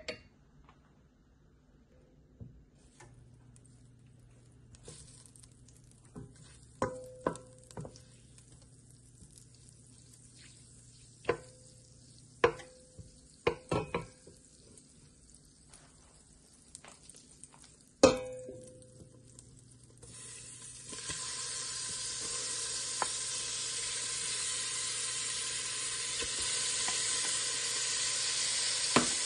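Butter sizzling faintly in a hot stainless-steel pot while a wooden spoon knocks against the pot several times, each knock leaving a short metallic ring. About two-thirds of the way through, squid rings go into the hot butter and a loud, steady sizzle of frying starts.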